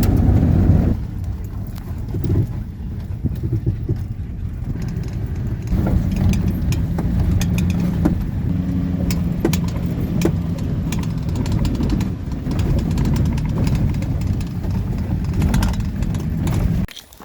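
Converted camper van driving along a road: a steady low road and engine rumble with a faint hum, cutting off abruptly near the end.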